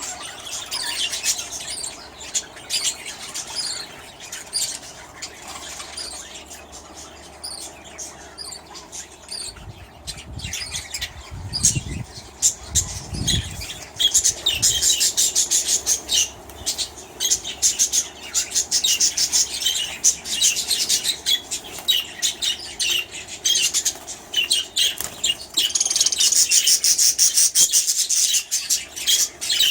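A flock of budgerigars chattering and chirping in a colony aviary, with wings fluttering; the chatter grows busier about halfway through and again near the end. A brief low rumble comes about ten seconds in.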